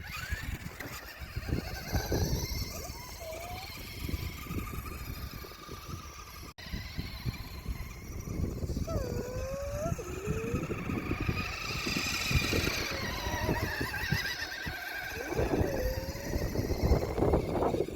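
Radio-controlled off-road car driving over grass, its motor running and its body rattling over the bumps, with several short squeaky chirps along the way.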